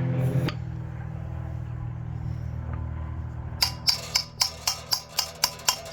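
Rapid metal-on-metal hammer blows, about four a second, each with a short ring, starting a little over halfway through over a steady low hum. The hammer is driving a rod into bread packed behind a pilot bearing to force the bearing out of the crankshaft.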